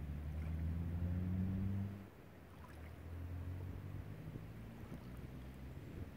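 Low, steady hum of a motorboat engine out on the lake, louder for the first two seconds and then dropping off abruptly to a fainter drone, over small waves lapping on a sandy shore.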